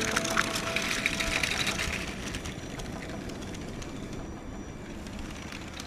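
LEGO train running on plastic track, heard close up from on board: its wheels rattle and click along the rails over the hum of its motor. Louder for the first couple of seconds, then steadier.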